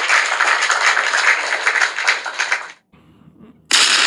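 Clapping of many hands, a dense, even applause that cuts off abruptly about three seconds in. After a short quiet gap, a sudden loud rush of noise starts near the end.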